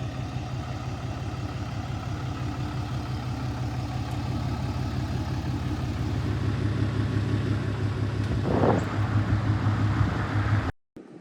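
Cummins turbo-diesel engine of a 4th-gen Ram 2500 idling steadily. A brief rushing swell comes about eight and a half seconds in, and the sound cuts off suddenly near the end.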